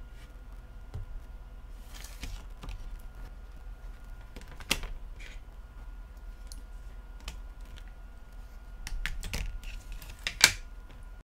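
Scattered light clicks and taps of hands handling a disassembled smartphone and its parts on a tabletop, busier near the end with one sharper click, over a faint steady hum; the sound cuts off abruptly just before the end.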